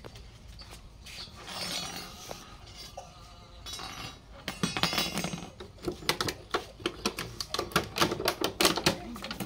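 A quick run of hard clinks and knocks from a metal snake hook and a plastic jar being handled against a concrete floor. It starts about halfway through and grows denser near the end.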